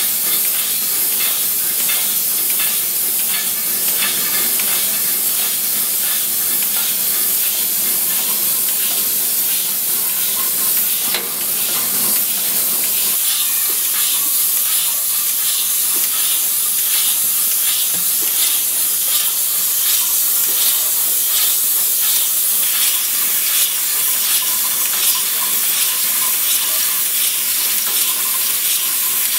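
Glass-bottle beer and soft-drink filling and capping line running: a steady hiss with a rapid, regular run of light clicks and glass clinks.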